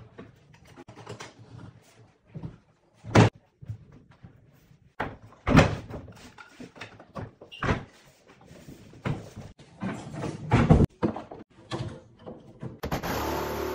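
Irregular knocks and bangs of wooden kitchen cabinet carcasses and panels being handled and fitted, several of them sharp. A steady machine whir starts near the end.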